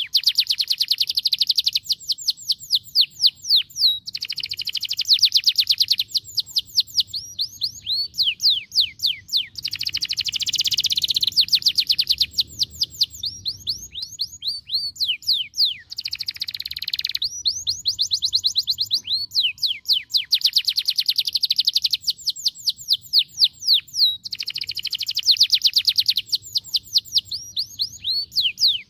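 Canary singing a long, fast song of rapid high-pitched trills and rolls, each phrase a quick run of repeated notes, with short breaks between phrases.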